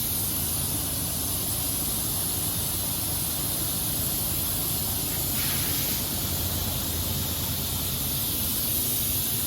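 Steady hiss over a low rumble, with a short brighter hiss about five seconds in.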